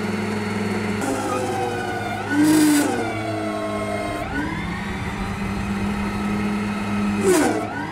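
Electric mini loader's hydraulic pump motor whining under load as the loader arms lift, its pitch falling and then rising again, over a steady low hum. A short loud hiss cuts in a couple of seconds in, and another comes near the end.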